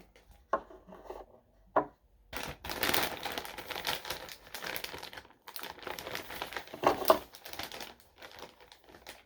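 Packaging crinkling and rustling as it is handled. Two short crackles come first, then a longer stretch of rustling, with its loudest crackle near the end.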